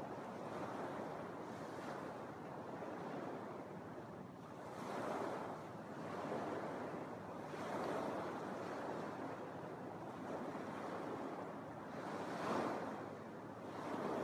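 Small Lake Michigan waves breaking and washing up a sandy beach, the surf swelling every few seconds, loudest near the end.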